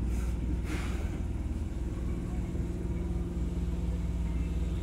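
Interior sound of a Fukuoka City Subway 2000-series train: a steady low rumble with a flat, even hum over it, and a brief hiss just under a second in.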